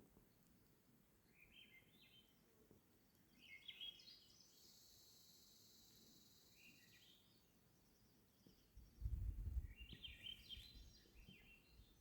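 Faint birdsong in the open: small groups of short high chirps, with a steady high buzzing trill for a couple of seconds in the middle. About nine seconds in comes a brief low rumble, the loudest sound here.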